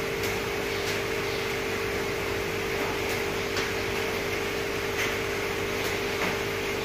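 A steady electric hum under an even hiss, with a few faint light ticks.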